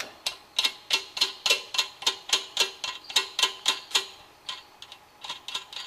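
A nut and washer being spun down the threaded stud of a valve spring compressor by hand: quick metallic clicks, about four or five a second, each with a short ring, thinning out to a few scattered clicks after about four seconds.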